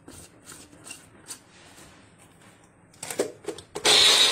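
Quiet handling clicks, a few knocks of the steel jar on the mixer grinder base, then about half a second before the end the electric mixer grinder switches on with a loud, steady whining motor, grinding onion, green chilli and garlic with a little water into a paste.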